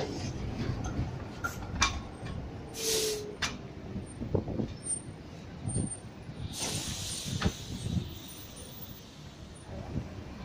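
Articulated tram rolling slowly over track junction points and crossings: a steady low rumble with scattered clicks and knocks of the wheels over the rail joints, and two short hisses, about three seconds in and about seven seconds in.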